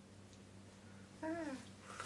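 A person's voice making one short wordless sound, falling in pitch, a little over a second in, then a short noisy breath near the end.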